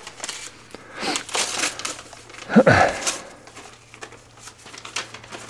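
Paper being handled, rustling and crinkling in short bursts for about a second and a half. About two and a half seconds in there is a brief vocal sound, and then fainter rustles.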